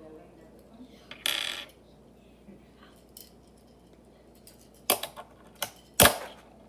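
Small hard fingerboard parts being handled on a hard surface: a short scrape about a second in, then a few sharp clicks and knocks near the end, the last one the loudest.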